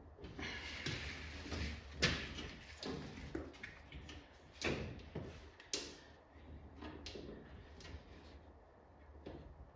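Rubber door weatherstripping being pressed into a car door by hand, with irregular clicks and knocks as its T-shaped clips are pushed into the holes in the door. The loudest knocks come about two seconds in and around five seconds in.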